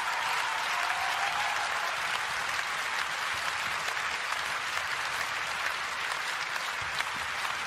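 Large audience applauding, a steady dense clatter of many hands clapping.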